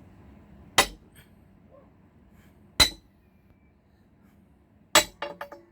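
Hammer blows driving a metal pry bar into a safe's door to force it open: three sharp strikes about two seconds apart, the last followed by a few quick, lighter rebound taps.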